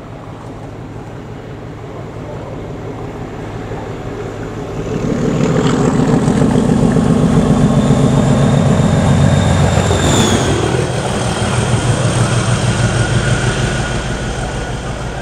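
Class 37 diesel locomotive with its English Electric V12 engine, approaching and passing at speed, its engine note and a high whine growing steadily louder. About ten seconds in the whine drops in pitch as the locomotive goes by, and the sound then slowly fades.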